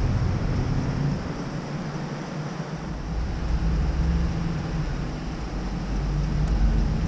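Low rumble of wind buffeting a helmet-mounted action camera's microphone, easing off a second or two in and picking up again, over a faint steady hum.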